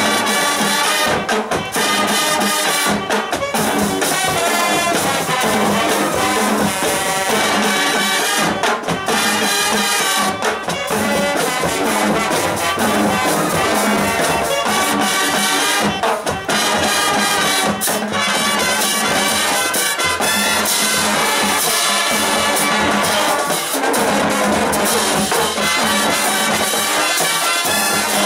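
Marching band playing full out: massed brass (trumpets, trombones, sousaphones) over drums and percussion, loud and continuous with a few short breaks in the phrasing.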